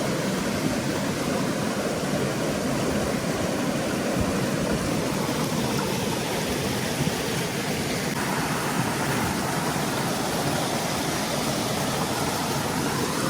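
Rushing water of a mountain stream: a steady, even hiss with no breaks, slightly brighter from about eight seconds in.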